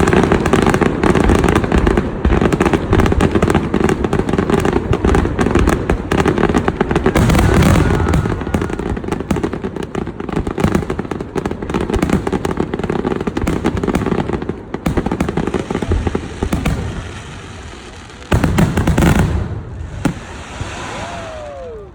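Fireworks crackling in a dense, rapid barrage of sharp pops for about sixteen seconds, then dying down, with one more short burst of crackling near the end.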